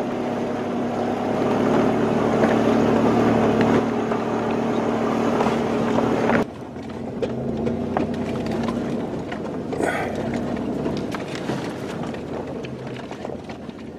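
Four-wheel-drive vehicle's engine running steadily at crawling speed on a rocky dirt track, heard from inside the cab. About six and a half seconds in the sound drops suddenly in level, and scattered knocks and rattles of the vehicle jolting over rocks follow.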